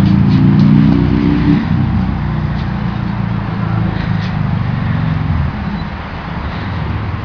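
An engine running, its pitch climbing over the first second and a half, then settling lower and steadier and easing off a little after about five and a half seconds.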